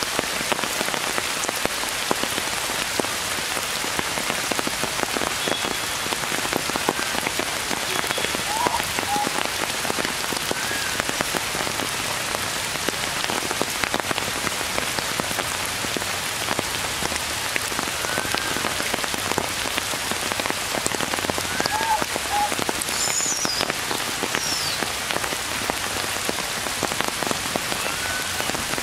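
Steady rain falling on the leaves of forest trees, a dense patter of drops. A few faint short chirps sound now and then through it.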